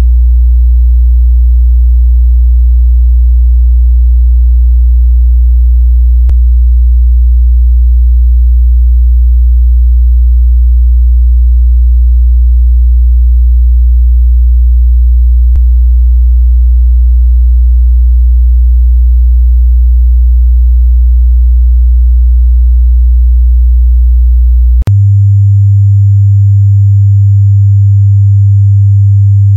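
Steady 60 Hz sine-wave test tone at −2 dB, loud and unchanging. About 25 seconds in it switches abruptly to a steady 100 Hz test tone. These are bass test tones for setting a car amplifier's gain.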